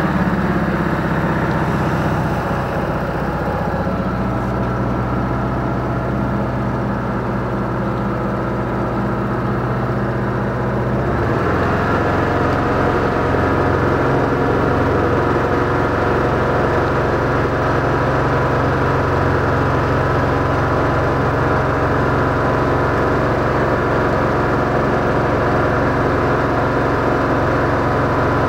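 Motorboat engine running steadily under way. About eleven seconds in, its note shifts and it gets a little louder.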